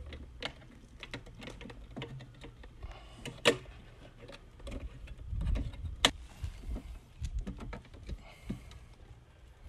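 Scattered clicks and taps of insulated copper wires and hands working inside a sheet-metal spa disconnect box, as the line-side hot conductors are routed into place. Two sharper clicks stand out, about three and a half and six seconds in.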